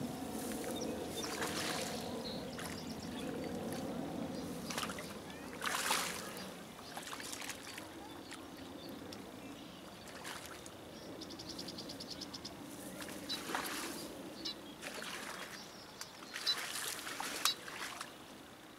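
A hooked carp being reeled in on a rod and reel, with short rushes of noise and a brief rapid clicking about two-thirds of the way through. A low motorboat engine drone runs under the first half.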